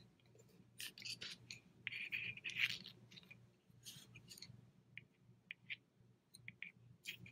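Wooden double-pointed knitting needles clicking and scraping against each other and the bulky yarn as stitches are worked: faint scattered taps, with a longer scrape about two seconds in.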